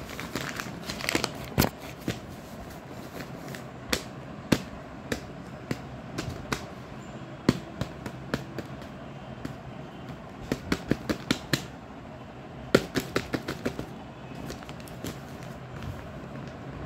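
Blind-bag packaging crinkling and crackling as it is handled and opened by hand: irregular sharp crackles and clicks, coming in flurries.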